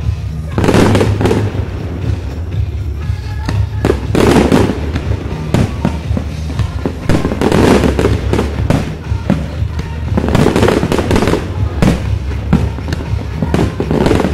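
Aerial firework shells bursting in quick succession, a loud bang every one to two seconds, each followed by a dense spray of crackling.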